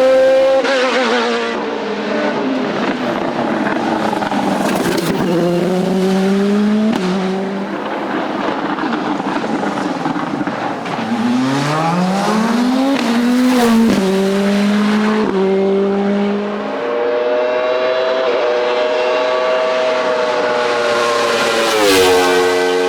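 Racing car engine at full throttle on a hillclimb. It revs up and drops in pitch at each gear change several times, with a hard rising rev partway through.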